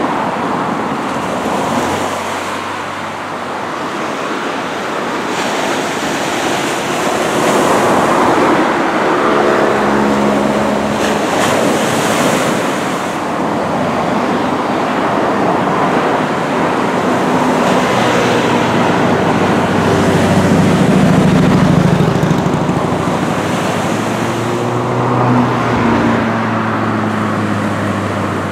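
Small surf washing on the shore, a steady rushing noise, with road traffic passing: the hum of vehicle engines swells about nine seconds in and again for a long stretch from about eighteen seconds.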